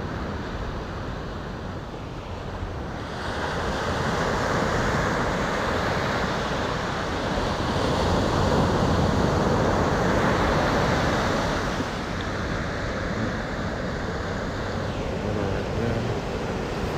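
Ocean surf breaking and washing up the sand in a steady rush, swelling louder about three seconds in and easing off again after about twelve seconds.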